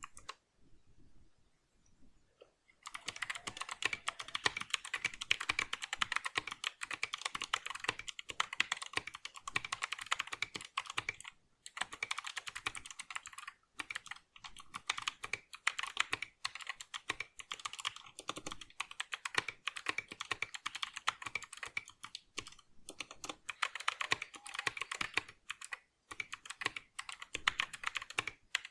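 Fast typing on a Geek GK61 60% mechanical keyboard fitted with clicky blue Gateron optical switches. It starts with a few faint clicks and becomes a dense run of key clicks about three seconds in, with a few short breaks.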